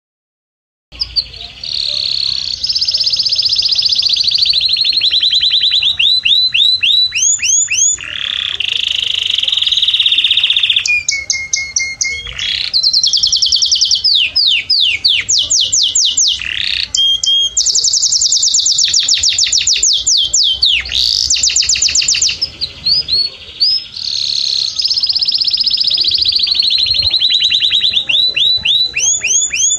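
Male canary singing a long, high-pitched song of fast trills and rolling phrases, with short breaks between phrases; the song starts about a second in.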